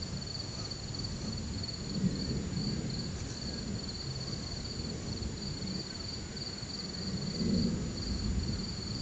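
Low rumbles of distant thunder swell about two seconds in and again near the end, over the steady, rapidly pulsing chirping of night insects.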